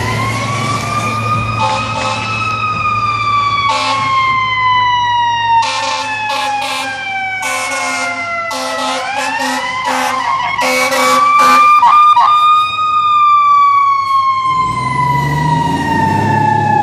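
A fire engine's siren wailing in two slow cycles, each winding up quickly and then falling away slowly, with short repeated horn blasts over it in the first three quarters. Near the end the truck's diesel engine rumbles loudly as it passes close by.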